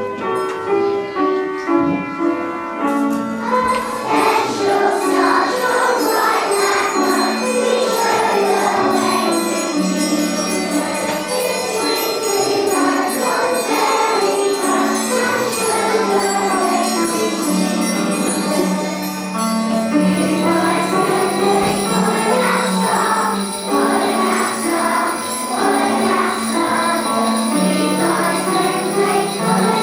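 Christmas music with jingle bells shaken steadily over a stepping melody, the bells coming in about four seconds in.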